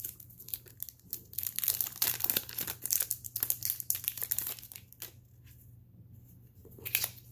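Thin plastic protective wrap crinkling as it is worked off a small gadget in the hands: dense crackling for about four seconds, quieter for a while, then a brief crackle again near the end.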